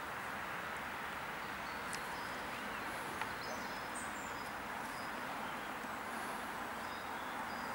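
Steady outdoor background hiss, with a few short, high bird chirps in the middle and two light clicks.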